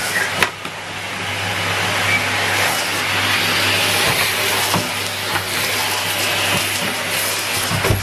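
Numatic Henry canister vacuum cleaner running steadily with a constant motor hum, the machine being moved across carpet, with a sharp click about half a second in and a few lighter knocks.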